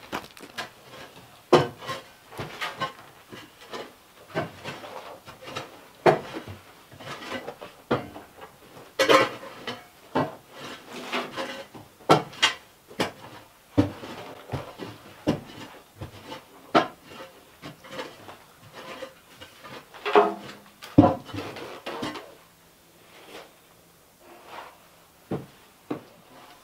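A shovel scraping and scooping up sawdust, in irregular scrapes and knocks about once a second, thinning out near the end.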